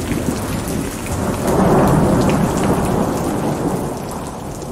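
Thunderstorm: steady rain with a roll of thunder that swells about a second and a half in and slowly dies away.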